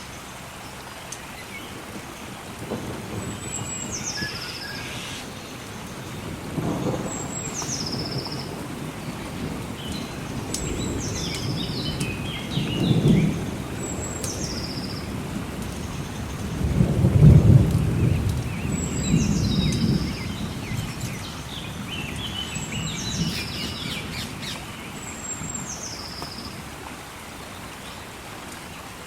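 Thunder rumbling several times over a steady hiss of rain, loudest about two-thirds of the way through. A bird repeats a short call that drops in pitch every few seconds.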